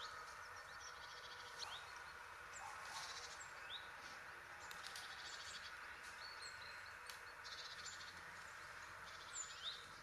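Faint outdoor ambience: small birds chirping now and then in short rising calls, with buzzy trills in between, over a steady background hiss.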